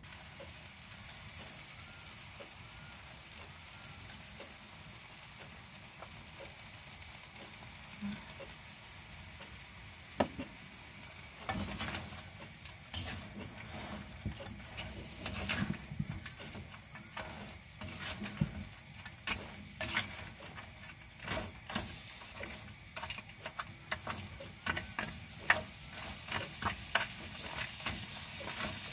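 Yabbies sizzling in a nonstick wok, a steady hiss for the first ten seconds or so. Then a spatula stirs and tosses them, with many quick scrapes and knocks against the pan over the sizzle.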